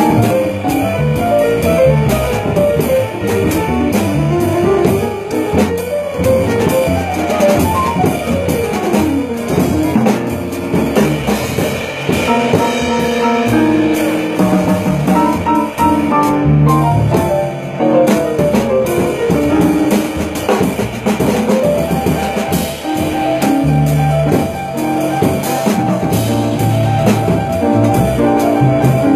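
Small jazz group playing live: drum kit and guitar stand out among the other instruments, with quick rising and falling runs of notes.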